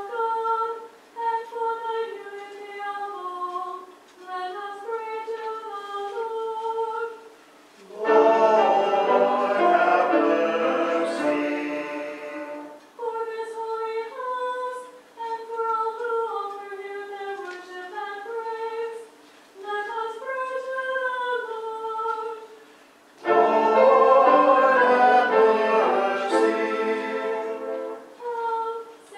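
Hymn singing in a church: a single high voice carries the melody. About eight seconds in, and again near the end, it gives way to a louder, fuller passage of several seconds.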